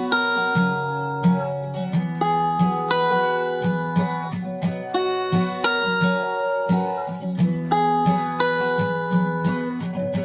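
Background music: acoustic guitar picking notes in a steady rhythm.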